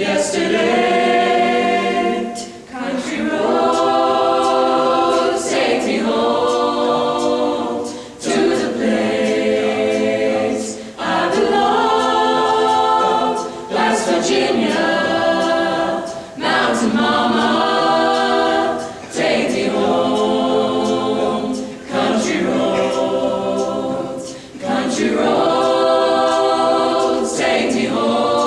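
Mixed-voice youth a cappella choir singing in close harmony, unaccompanied, in phrases of two to three seconds with a short break between each.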